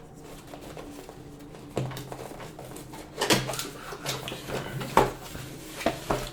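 Cardboard box of a doorknob lock being opened and its contents handled: a string of scrapes, rustles and knocks, the sharpest about three and five seconds in.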